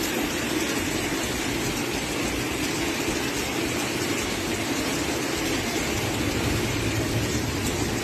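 Hail and heavy rain falling steadily on wet pavement, a dense, unbroken noise.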